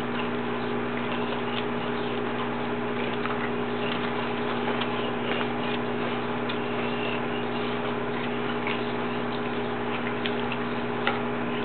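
Steady background hum and hiss, with a few faint, scattered ticks.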